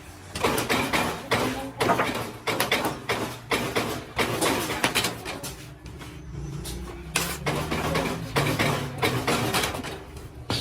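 Rapid, irregular clatter of knocks and impacts in quick runs, typical of hand work or parts handling in a workshop. It eases off for a moment past the middle, then picks up again.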